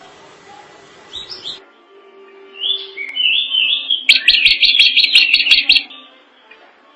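Drongo singing: a short call about a second in, then a few looping whistled notes, then a loud, rapid chattering run of notes lasting nearly two seconds.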